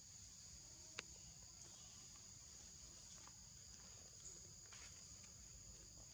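Faint, steady high-pitched drone of insects in the forest, with one sharp click about a second in.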